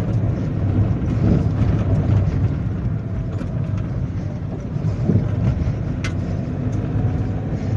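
Small Suzuki car driving, its engine and road noise heard from inside the cabin as a steady low rumble. A brief tick sounds about six seconds in.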